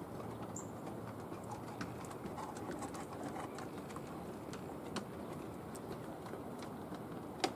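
Steady low rushing of the ocean and wind at the shore, with scattered faint clicks and one sharper click near the end.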